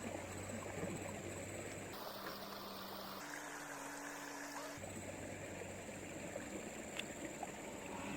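Steady low hiss of flowing river water with a faint hum underneath. The background changes abruptly about two seconds in and again near five seconds.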